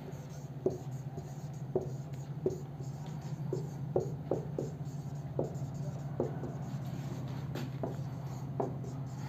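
Marker writing on a whiteboard: a series of short, irregular strokes and taps as words are written out, over a steady low hum.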